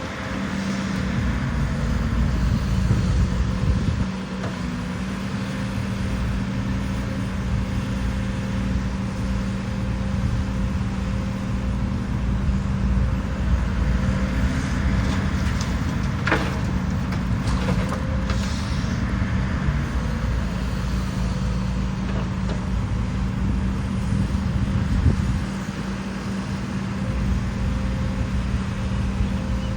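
Diesel engine of heavy earthmoving machinery running steadily under load, with a constant low hum. There is a sharp knock about halfway through.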